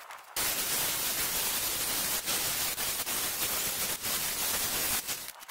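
Angle grinder with a thin cut-off wheel cutting through steel bed-frame angle iron: a steady, hissing grinding noise. It starts about half a second in, after a brief burst, and stops shortly before the end.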